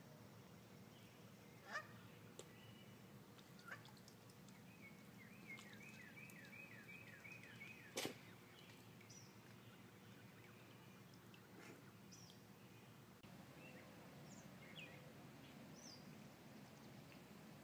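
Faint outdoor pond ambience with scattered small bird chirps, including a quick run of about ten short descending chirps a few seconds in. Two sharp clicks stand out, about two seconds in and near the middle.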